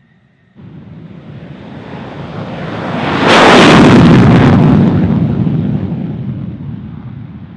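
F-16 Fighting Falcon's jet engine in afterburner on its takeoff roll. The roar cuts in about half a second in and swells to its loudest as the jet passes close, around the middle. It then fades as the jet moves away down the runway.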